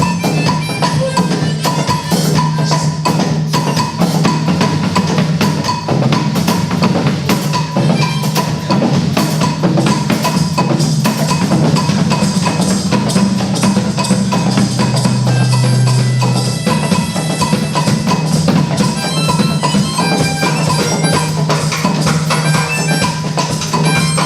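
Music driven by dense percussion strikes over held low notes, with mallet-percussion tones.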